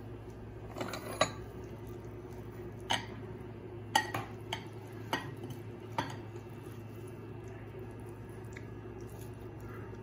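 Ceramic spoon clinking and scraping against a ceramic plate and bowl as fried rice is scooped out: scattered light clinks, most of them in the first six seconds, over a steady low hum.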